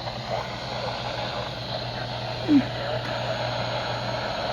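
Steady hiss with a low hum beneath it, and one brief rising chirp about two and a half seconds in.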